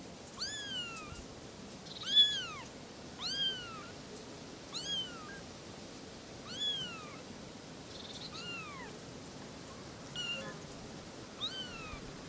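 Young kitten mewing repeatedly in high thin calls, about eight short mews, each rising then falling in pitch, spaced roughly a second and a half apart, the loudest about two seconds in.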